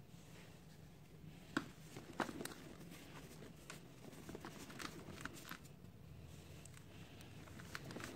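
Dry cement powder and small clumps crumbled by hand and sifted through the fingers: faint soft crunching and scattered small ticks, with two sharper clicks about one and a half and two seconds in.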